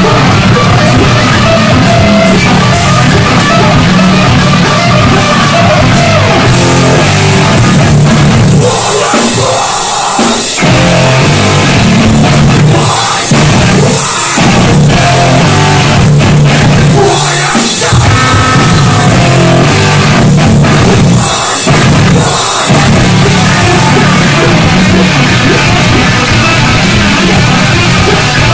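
Heavy metal band playing live and loud: electric guitar, bass guitar, drum kit and vocals. The band cuts out for a short break about nine seconds in, then makes several brief stops later on.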